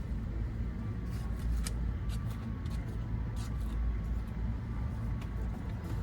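Steady low rumble, like a vehicle, with a scattered handful of short, light clicks and rustles.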